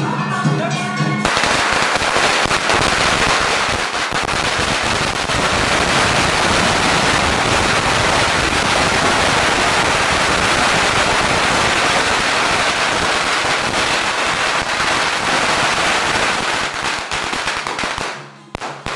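A long string of firecrackers going off in a dense, continuous crackle. It breaks in about a second in over the music and dies away near the end.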